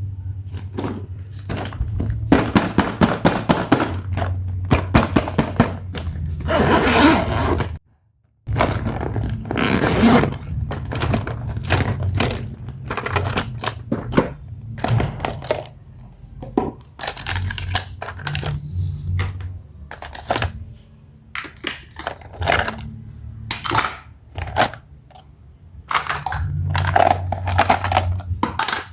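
Hands handling small plastic toy pieces and packaging: a run of clicks, taps and knocks with some scraping, broken by a brief dropout to silence about eight seconds in.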